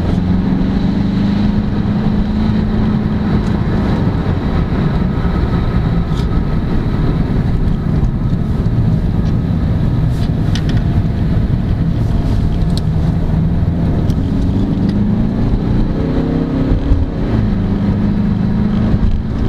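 Mercedes car driving on a wet road, heard from inside the cabin: a steady low drone of engine and tyre noise. Near the end the engine note rises and falls a few times as the car speeds up.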